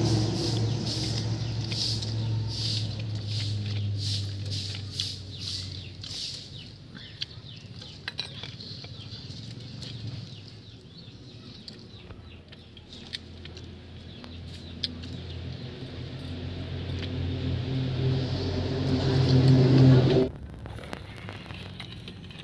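Low motor hum that fades over the first eight seconds, then swells again and cuts off suddenly near the end, with rapid high chirping, about two a second, over the first six seconds.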